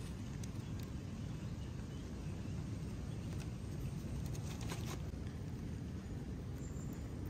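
A few sharp clicks over a steady low rumble: a hand lighter being flicked to light paper kindling under a clay pot. The clicks come once under half a second in and again in a cluster around four to five seconds.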